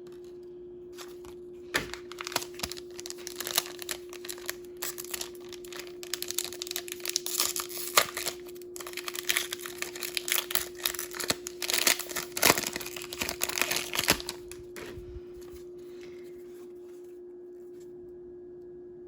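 Crinkly packaging wrapper being torn open and crumpled by hand, a dense run of crackling that starts about two seconds in and stops a few seconds before the end. A faint steady hum runs underneath.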